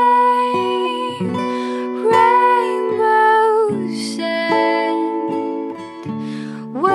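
Background music: a slow song with plucked guitar under a gliding melody of long held notes.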